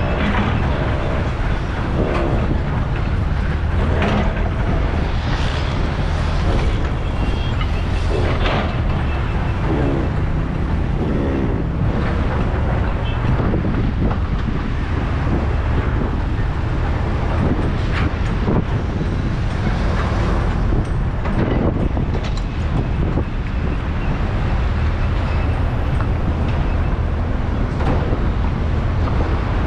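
Steady low rumble of road and engine noise from driving in slow, congested traffic, with nearby cars, trucks and a motorcycle passing and brief wavering engine sounds over it.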